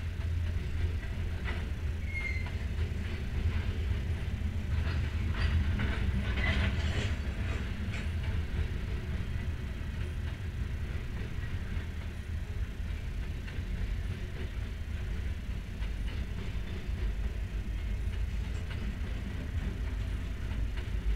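Freight train of covered grain hopper cars rolling past: a steady low rumble of steel wheels on rail, with scattered clanks and a couple of short wheel squeaks in the first several seconds.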